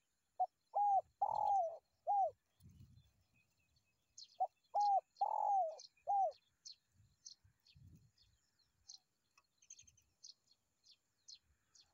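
A dove cooing in two phrases about four seconds apart, each a run of about five coos with the fourth drawn out longest. Thin high chirps of small birds repeat through the second half.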